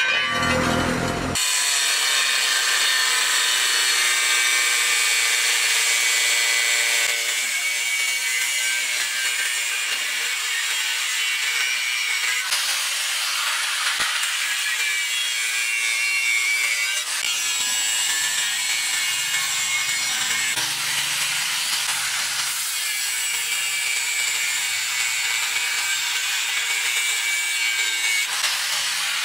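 Corded angle grinder with a cut-off disc cutting through the steel of an old tractor plough disc. It starts about a second in and runs as a steady, high grinding hiss and whine.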